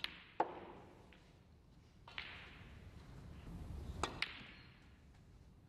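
Snooker balls clicking. A cue strikes the cue ball and the balls knock together in a few sharp clicks: a close pair at the start, one about two seconds in, and another close pair about four seconds in.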